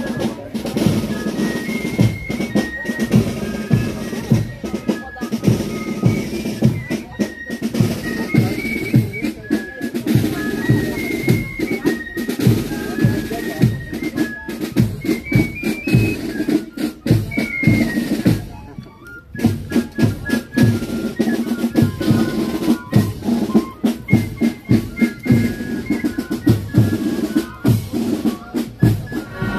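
Marching band playing: a steady bass drum beat about twice a second with snare drums, under a high stepping melody line. The music drops briefly about two-thirds of the way through.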